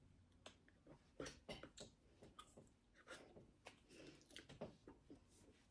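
Near silence: faint, irregular clicks, smacks and rustles from a person signing, as the hands, clothing and mouth move.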